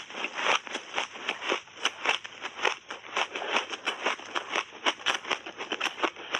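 Shaved ice coated in matcha powder being chewed close to the microphone: rapid, irregular crunching, several crunches a second.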